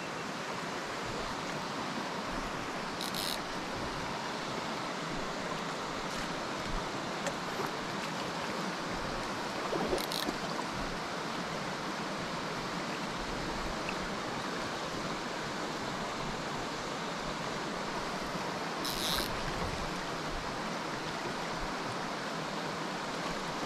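Shallow mountain creek running over rocks: a steady rush of flowing water, with a few faint brief sounds standing out now and then.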